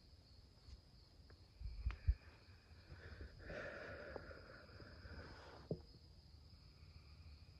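Night insects trilling steadily on one high note. Two low thumps from handling or footsteps come about two seconds in, and a breathy rustle runs through the middle.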